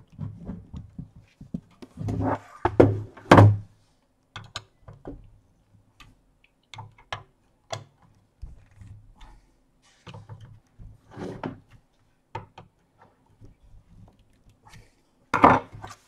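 Screwdriver clicking and scraping on screws in the sheet-steel case of a Hikvision DVR while the hard-drive screws are tightened. Irregular knocks and thunks come as the metal case is handled and set down, the loudest a few seconds in.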